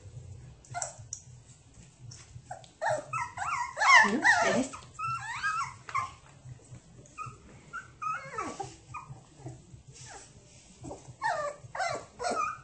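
Five-week-old puppies giving short, high yelping cries in quick runs, one bout about three to five seconds in and another from about eight seconds on, with a few faint clicks between.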